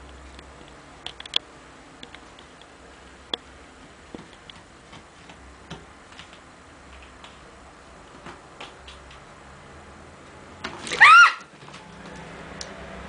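A cat playing with a caught mouse: scattered light clicks and taps from the scuffle, then one loud, short squeal about eleven seconds in that rises in pitch.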